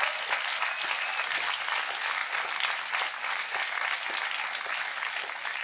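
Audience applauding: many hands clapping together in a steady, dense mass.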